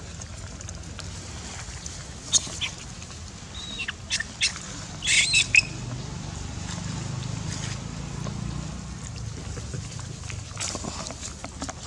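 A few short, high-pitched squeals from long-tailed macaques, with the loudest cluster about five seconds in, over a low steady rumble.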